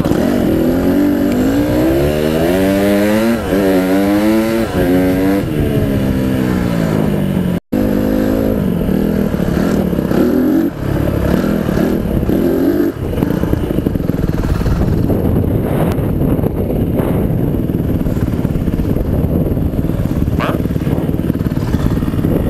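Honda CRF150R dirt bike's single-cylinder four-stroke engine on a trail ride, picked up by a helmet-mounted microphone. The engine revs up and down with the throttle, its pitch rising and falling several times. The sound cuts out for an instant about eight seconds in, and after that the engine runs more steadily under a rough, noisy rumble.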